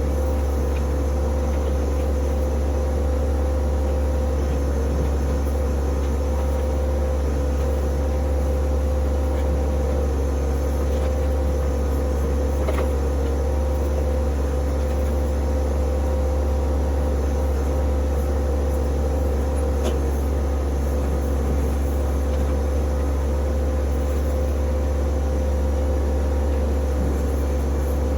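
Compact tractor's diesel engine running steadily at constant speed, a low even hum.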